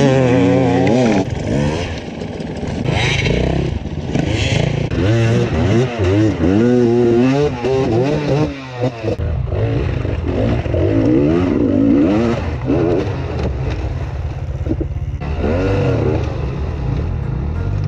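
Enduro motorcycle engine revving hard under repeated throttle, its pitch rising and falling again and again as the bike is worked up a steep rocky climb.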